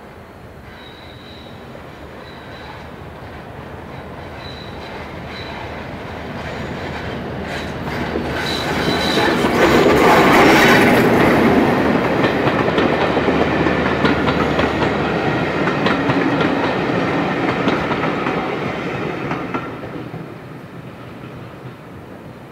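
Class 31 diesel-electric locomotive hauling a passenger train past: its English Electric diesel engine grows louder on the approach, the wheels click over the rail joints, loudest about ten seconds in as the coaches run by, then the sound fades away.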